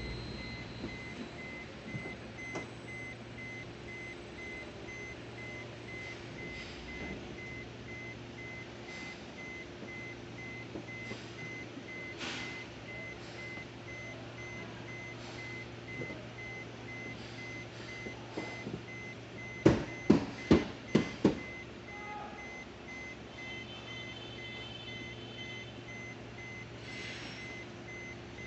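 A steady, evenly repeating electronic beep over a low hum, with five loud knocks in quick succession about twenty seconds in.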